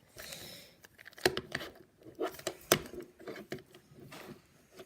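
A 3x3 Rubik's cube being turned by hand: the plastic layers give off irregular clicks and clacks, a few of them sharp and loud, with a short rustle at the start.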